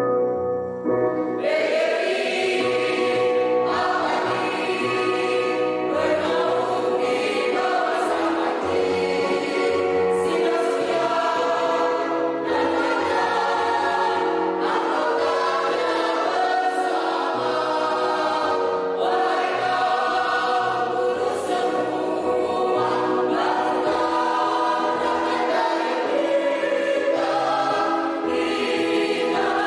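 Mixed choir of men's and women's voices singing a song in harmony, coming in about a second and a half in, in long held phrases with short breaths between them.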